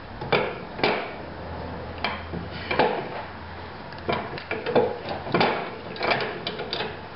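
A lawnmower engine flywheel being shifted and seated in a steel bench vise: a dozen or so irregular metallic knocks and clanks of the flywheel against the vise jaws and of the vise being worked.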